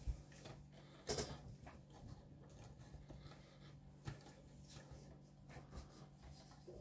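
Faint handling sounds of a small screwdriver driving screws into a model gauntlet part: a sharp click about a second in, another about four seconds in, and small ticks between, over a low steady hum.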